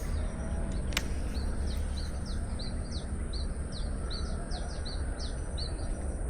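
A small bird calling in a repeated series of short, high, falling chirps, two or three a second, over a steady low outdoor rumble. One sharp click comes about a second in.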